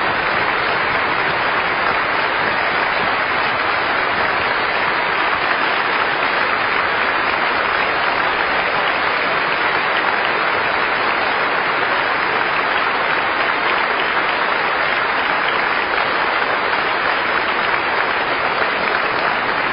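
A large concert-hall audience applauding, steady and unbroken.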